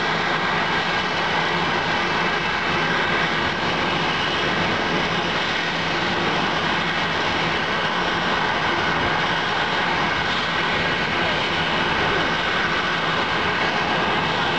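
Jet engines of a Boeing 737 airliner running steadily while it taxis, a high whine over a constant rush.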